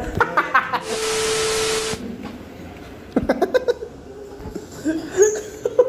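A loud, even hiss with a steady low tone under it, lasting about a second and cutting off abruptly. After it come scattered voices and knocks of students in a classroom.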